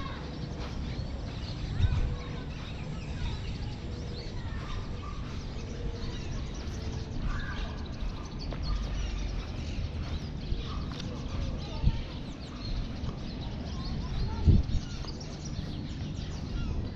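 Park ambience: many birds chirping and calling over a steady low rumble, with a few short thumps, the loudest near the end.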